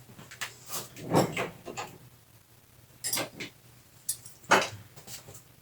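Handling noise of tools being worked: scattered light clicks, knocks and scrapes, with two longer scraping swishes about a second in and again about four and a half seconds in.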